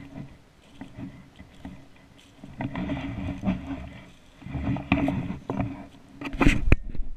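Footsteps crunching through dry fallen leaves, mixed with handling noise as the barrel-mounted camera is swung up and back down, coming in irregular bursts. A cluster of sharp knocks near the end is the loudest part.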